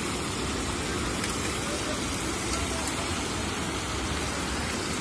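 Floodwater rushing steadily across a road, a continuous rush of water.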